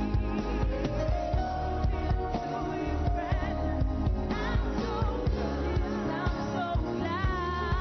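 Gospel praise song: a singer with wavering vibrato over a band with a steady drum beat.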